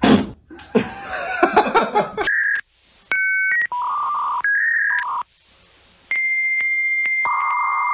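Electronic telephone-style tones: a string of short steady beeps, often two pitches at once with gaps between, then a long steady high tone that is joined by a lower buzzing tone. Before the tones, about two seconds of loud, varied sound with wavering pitches.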